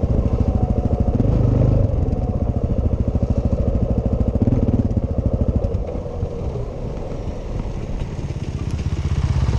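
Suzuki DR-Z400S's single-cylinder four-stroke engine running at low speed on a dirt track, a rapid even pulse of firing strokes. The engine eases off and goes quieter about six seconds in, then picks up again near the end.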